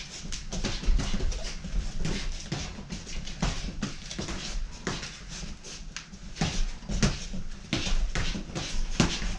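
Boxing gloves landing in quick, irregular smacks during sparring, mixed with the boxers' sharp breaths.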